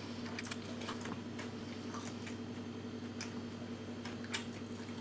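Faint, irregular small clicks over a steady low electrical hum.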